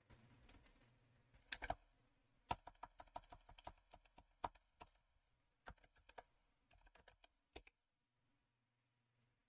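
Typing on a computer keyboard: quick runs of keystroke clicks with short pauses, stopping about two seconds before the end.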